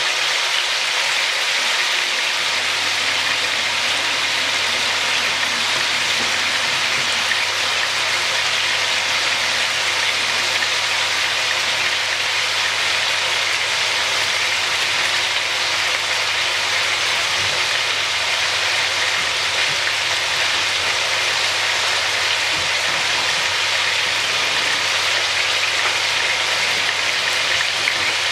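Seasoned oxtail pieces sizzling steadily in a hot steel pot as they brown, with a low steady hum coming in about two seconds in.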